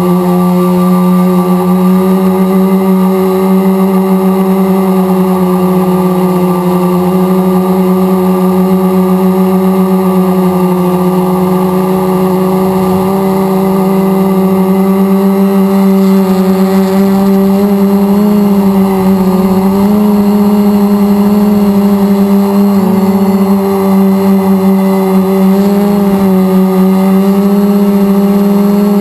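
Electric motors and propellers of an RC multirotor in flight, a loud steady hum with a strong low tone and overtones, heard close up from its onboard camera. The pitch wavers slightly through the second half.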